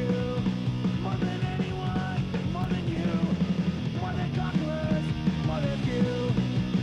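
Rock music with a steady beat and distorted guitars.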